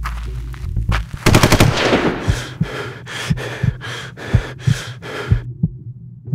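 Automatic gunfire: a rapid burst about a second in, then a steady string of single shots, about three a second, that stops shortly before the end. A low drone from the film score sits under the start.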